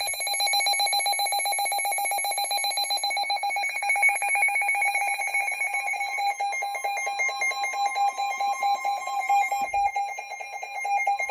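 Emergency alert attention tone on a NOAA Weather Radio / EAS broadcast: a loud, steady electronic tone with a slight buzz. It signals that a new warning, here a severe thunderstorm warning, is about to be read.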